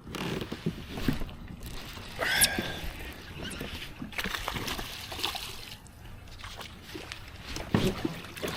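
Water splashing and sloshing beside a kayak with irregular knocks and rattles, including a sharp splash about two and a half seconds in. This is a hooked largemouth bass thrashing at the surface as it is fought to the boat.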